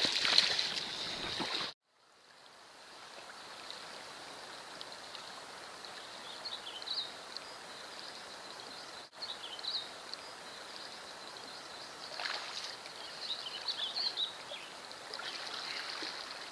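River water flowing steadily past the microphone, an even rush of noise, with short high chirps at several points.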